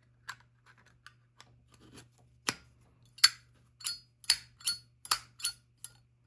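Zippo lighter's metal lid flicked open and snapped shut over and over: a run of sharp, metallic clicks, faint at first, then louder and evenly spaced at about two to three a second in the second half.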